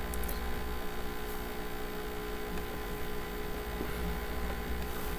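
Steady electrical hum over a faint hiss, the background noise of the recording setup, with a couple of faint clicks near the start.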